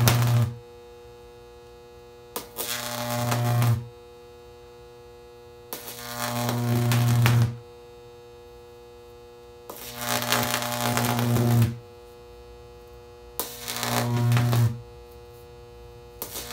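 High-voltage AC arc, coloured yellow by sodium, buzzing and crackling with a strong mains-frequency hum. It is struck again and again, about every four seconds: each arc starts with a sharp snap, grows louder as it is drawn out over a second or two, then cuts off suddenly. A quieter steady hum goes on between arcs.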